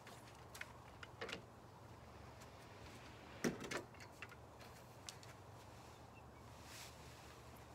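Faint scattered clicks and knocks as a telescopic window-cleaning pole with a squeegee is handled and moved, the loudest about three and a half seconds in, over a low steady hum.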